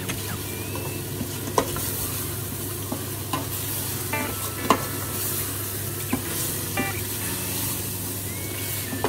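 Chicken drumsticks sizzling in oil in a stainless steel pot as they are sautéed with garlic, onion and ginger, stirred with a wooden spatula that knocks and scrapes against the pot now and then.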